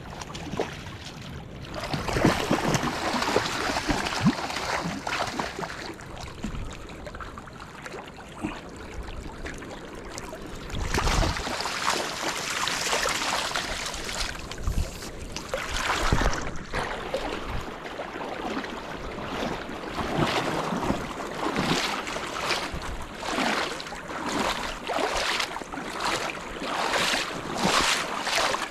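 Rushing river water and rain, with wind buffeting the microphone. In the last several seconds the noise swells in short pulses about once a second.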